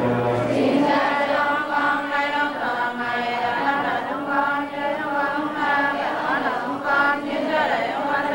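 A choir singing together in a slow, chant-like style, with long held notes.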